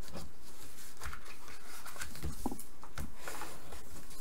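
Paper rustling with soft scrapes and taps as the flaps of a paper envelope are folded in and creased with a bone folder.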